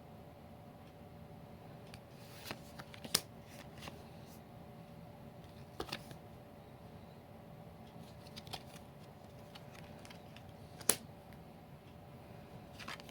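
Magic: The Gathering cards being handled and flipped through by hand: scattered sharp snaps and clicks of card stock, the loudest about eleven seconds in, over a faint steady hum.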